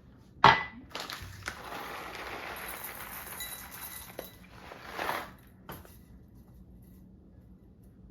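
Clatter of cups and coffee-making gear on a kitchen counter: a sharp clink about half a second in, then a steady rushing noise for about three seconds, with a few lighter clinks after it.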